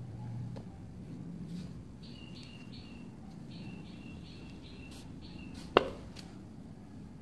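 A peeled banana set down into a plastic mixer bowl gives one sharp knock near the end. Before it, a bird chirps a quick run of short, high two-note calls for about three seconds.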